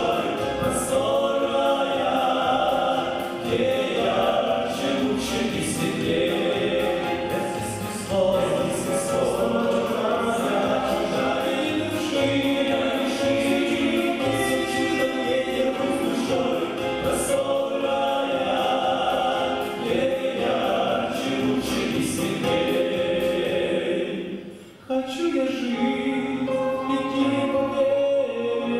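A vocal group singing a Christian song together in several voices. The singing breaks off briefly near the end, then resumes.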